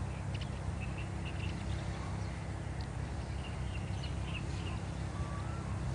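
A steady low rumble with short, high chirps of small birds scattered over it.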